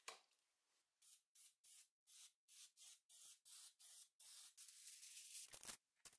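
Aerosol spray adhesive hissing from the can in a string of short bursts, about three a second, then one longer spray about four seconds in. Near the end, aluminium foil crinkles as it is laid down.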